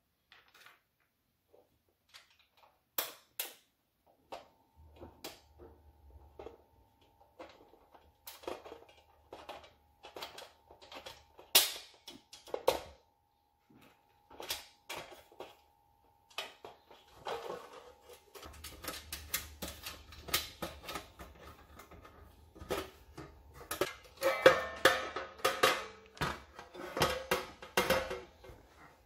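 Thin corrugated galvanized steel panels and loose bolts being handled: scattered clinks, taps and rattles of sheet metal and hardware, with a denser stretch of metal clattering and ringing near the end.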